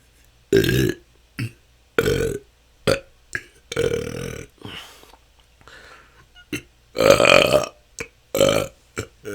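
A person belching repeatedly: natural, unforced burps, about one a second, some short and clipped, others longer and drawn out. The loudest and longest comes about seven seconds in.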